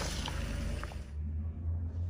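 Car tyre rolling over paper cups of Orbeez gel, squishing the wet gel with a few sharp crackles from the paper. The crushing fades about a second in, leaving the low hum of the car's engine.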